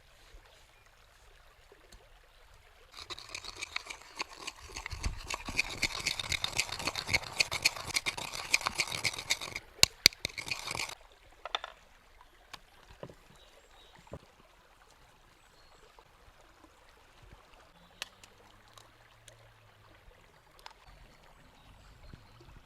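Liquid poured in a steady stream for about eight seconds, then cut off suddenly, followed by a few light clicks and taps.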